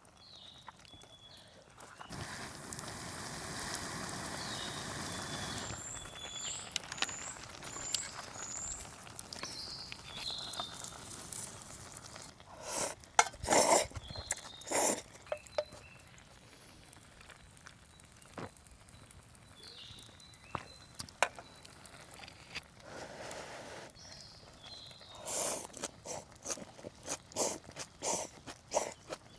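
Outdoor camp ambience: scattered sharp clicks and knocks from handling, a stretch of rushing noise early on, and repeated short high chirps.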